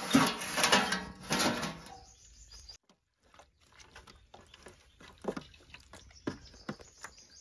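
A large metal tray set down on the ground, clattering and ringing for about two seconds before it dies away. Then soft wet slaps and a few light knocks as raw chicken pieces are laid and moved about on the metal.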